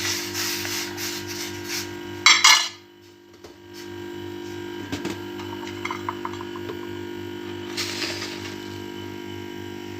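A spoon stirring and scraping in a cooking pot of just-boiled herbal kahwa for about two and a half seconds, ending in a louder clatter; after that only a steady hum with a few faint clinks.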